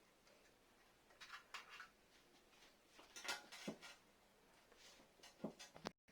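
Near silence with a few faint rustles and light clicks as hands work modelling clay on a plastic toy set.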